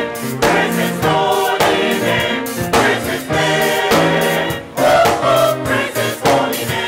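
Mixed-voice gospel choir of men and women singing together over a steady beat of about two strokes a second.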